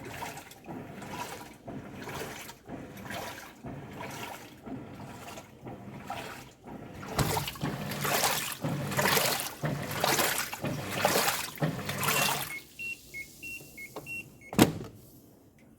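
Top-loading washing machine agitating a load in water, each stroke of the agitator giving a swish, growing louder and quicker about halfway through. Near the end it stops; a run of short two-note electronic beeps follows, then one sharp click.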